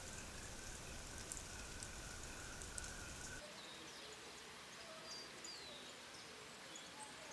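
Faint outdoor nature ambience: a steady hiss with a thin high tone and scattered ticks. About three and a half seconds in it changes to a quieter background with a few short high bird chirps, one sliding down in pitch.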